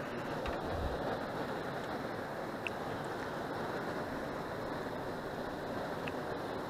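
Steady, even rushing noise of wind and moving river water, with a few faint ticks.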